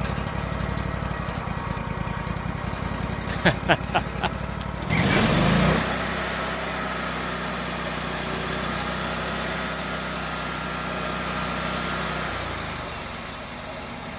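Wood-Mizer band sawmill's engine running steadily, with four quick high beeps about three and a half seconds in. About five seconds in the blade is engaged with a brief surge, and a steady high hiss joins the engine as the band blade runs through a thin slice of venison.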